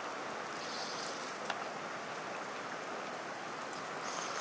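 Steady rushing of a stream, with a single small click about a second and a half in.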